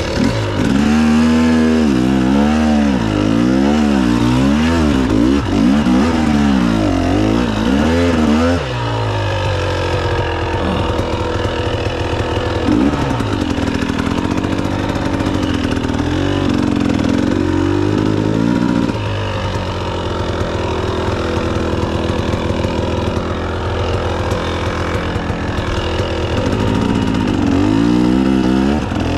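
Husqvarna TX300 two-stroke dirt bike engine revved up and down about once a second for the first eight seconds, then running at low revs with occasional rises, and revved up and down again near the end.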